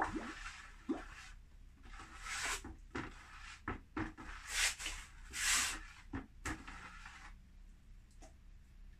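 Hand-glazing a stoneware pot with a liquid ash glaze: a sharp knock, another about a second in, then several short rushing, swishing noises of glaze being poured or shaken off, with light clicks of the pot and bucket being handled.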